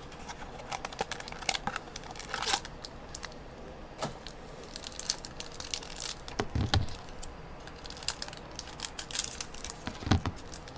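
A small cardboard mini box of trading cards being opened and its cards handled: crinkling and tearing rustles of packaging with scattered sharp clicks. Two dull thumps about six and a half seconds and ten seconds in.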